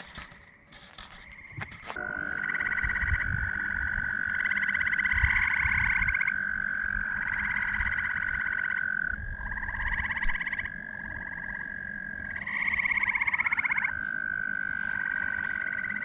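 Loud chorus of frogs and toads calling from a pond. A long, steady high trill runs under shorter pulsed trills that come and go every second or two. The chorus comes in strongly about two seconds in, after a quieter start.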